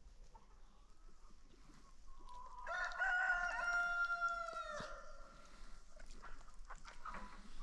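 A rooster crows once: a short rising lead-in about two seconds in, then a long loud held call that falls away at the end. Faint hen clucking and scratching around it.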